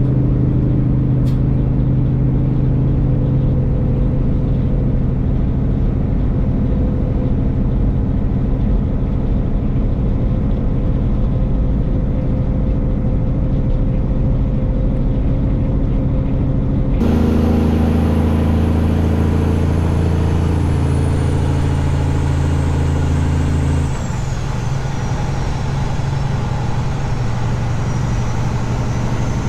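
A semi-truck's diesel engine running steadily. The sound changes abruptly about halfway through, and a few seconds later the engine note drops and turns slightly quieter.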